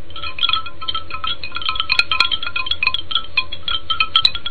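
Wind chimes tinkling: a dense, irregular run of short, high ringing notes over a faint steady hum.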